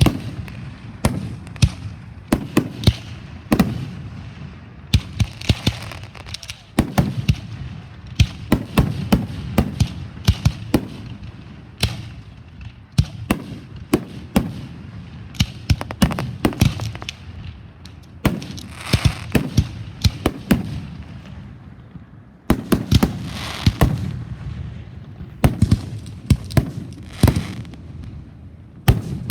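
Fireworks going off: a rapid series of sharp bangs and crackles in dense clusters, with short lulls between volleys.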